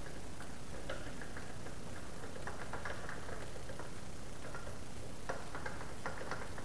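Irregular clusters of light clicks from a clamshell bearing puller being worked by hand to pull a bearing off an engine crankshaft, over a steady low hum.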